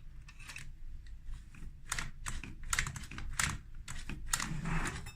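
Key being worked in a night latch's rim cylinder: a run of small, irregular metallic clicks from the key, pins and latch mechanism.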